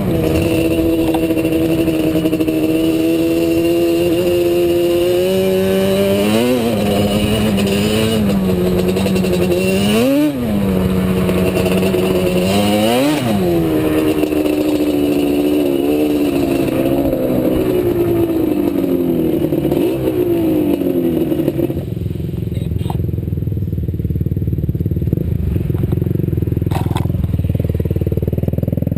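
ATV engine running on a trail ride, its pitch rising and falling with quick revs about 6, 8, 10 and 13 seconds in, then winding down. From about 22 seconds in the engine note drops to a low, steady rumble.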